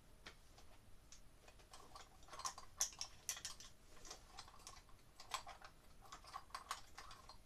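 Faint, irregular light clicks and ticks of small hardware and a hand tool being handled at a sheetrock ceiling, bunched in two flurries, the first about two seconds in and the second about five seconds in.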